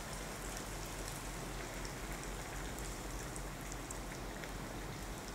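A bhatura deep-frying in hot oil in a kadhai: a steady sizzle with faint crackles throughout.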